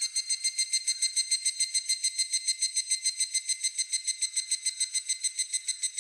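Higurashi (evening cicada, Tanna japonensis) calling: a high, ringing, rapidly pulsed song of about seven notes a second, held steady after swelling in.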